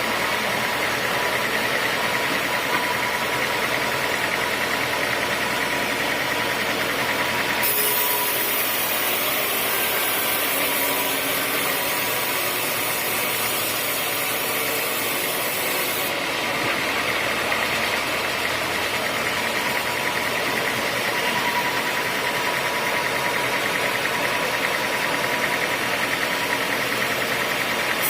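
Sawmill machinery running steadily, a continuous mechanical noise with a steady whine. A brighter, hissing layer joins about eight seconds in and drops out about eight seconds later.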